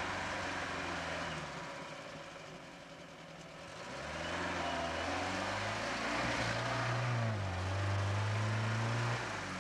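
UAZ-469's four-cylinder petrol engine revving under load as the vehicle pulls through mud and over sand mounds, its pitch rising and falling. It eases off about a second and a half in, then pulls hard again from about four seconds in and is loudest near the end.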